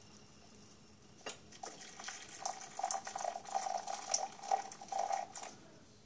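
Boiling water poured from a stainless steel saucepan into a glass Pyrex measuring cup: a knock about a second in, then a splashing stream for about four seconds that stops shortly before the end.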